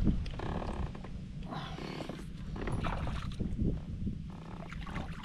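Wind rumbling on the microphone and water moving around a fishing kayak, broken by several short bursts of sound, each under a second, while a hooked bass is played on rod and reel.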